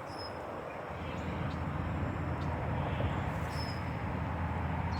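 Low, steady rumble of motor traffic that swells about a second in, with a few faint bird chirps over it.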